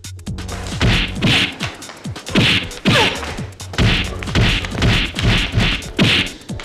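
A rapid series of punch and kick impact sound effects, about a dozen sharp hits roughly two a second, laid over a hip-hop beat with deep bass.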